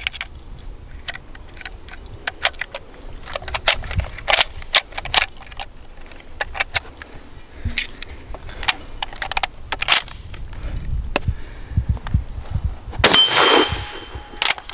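Metallic clicks and knocks of a Swiss K31 straight-pull rifle being loaded: cartridges going in from a charger and the bolt being worked. About thirteen seconds in comes one much louder gunshot with a short ringing tail, followed by another sharp crack just before the end.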